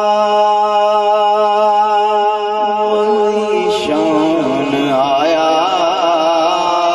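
A man singing a devotional naat through a microphone, unaccompanied. He holds one long, steady note for about three and a half seconds, then breaks into wavering, ornamented runs of notes.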